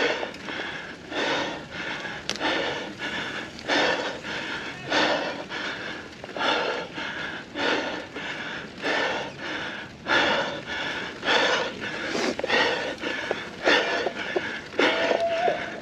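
A mountain-bike rider panting hard and out of breath from exertion, about one loud breath a second. One breath near the end carries a short wheezing tone.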